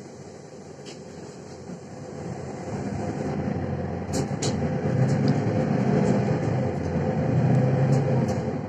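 Onboard a Mercedes-Benz Citaro C1 Facelift city bus: the diesel engine and running noise grow louder from about two seconds in as the bus picks up speed, then hold steady, with a few light clicks from the cabin.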